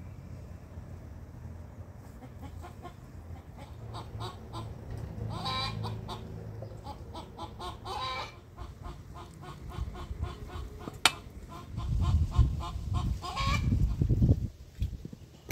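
Farmyard poultry calling: a run of rapid short calls with three louder drawn-out calls among them. A sharp click comes about eleven seconds in, and low rumbling noise follows near the end.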